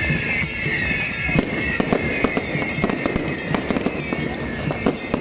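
Aerial fireworks and firecrackers going off overhead in rapid, irregular bangs and crackles, over a steady high-pitched hiss.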